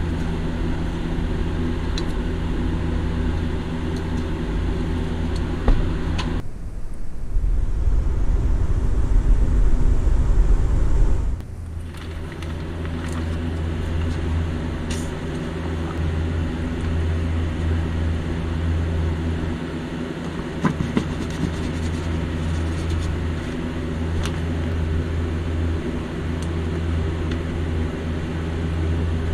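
Steady low machine hum. For about five seconds, starting a third of the way in, it turns to a deeper rumble. Light clicks of hard plastic toy parts and a zip-top plastic bag being handled sound over it.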